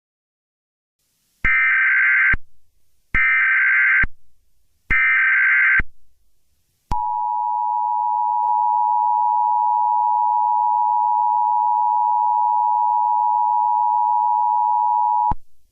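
Emergency Alert System broadcast tones: three short bursts of the SAME digital header, each just under a second, then the two-tone attention signal held steady for about eight seconds before cutting off.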